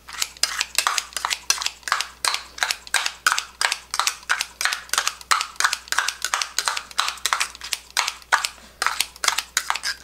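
Kitchen scissors snipping chopped kimchi inside a stainless steel cup: a quick, steady run of crisp cuts, about four or five a second.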